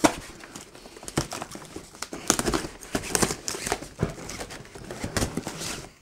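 Packing tape being slit with a knife and peeled off a cardboard shipping box, the cardboard flaps crinkling and scraping as they are pulled open: a run of irregular crackles and scrapes.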